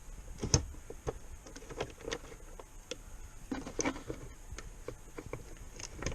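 Scattered clicks and light knocks of plastic and metal parts being handled as a motorcycle's tail section is lowered and worked free by hand, with the sharpest knock about half a second in.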